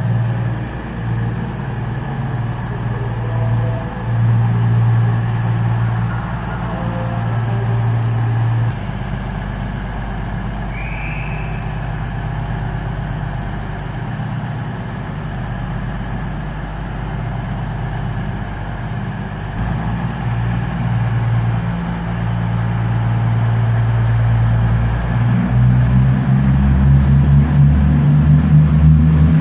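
CrossCountry Voyager's underfloor diesel engines running with a steady low hum as the train comes in along the platform, growing louder over the last few seconds as it draws near.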